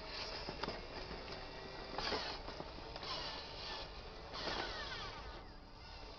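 Small electric motor and gears of a radio-controlled dump truck whining as it drives over dirt, surging about two seconds in and again near the middle, the whine sliding down in pitch after each surge.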